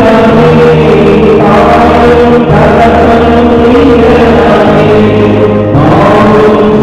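A man singing a slow devotional chant over sustained accompanying notes. The low held note underneath changes every couple of seconds, and the sound thins briefly near the end.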